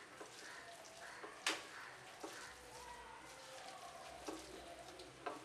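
A hand mixing shredded raw potato strips coated in flour, spice powder and ginger-garlic paste in a glass bowl: faint wet rustling and squishing, with a few sharp clicks, the loudest about a second and a half in.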